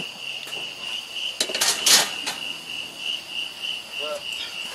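Steady, shrill insect chorus pulsing throughout, with a short metallic clatter, the loudest sound, about one and a half to two seconds in.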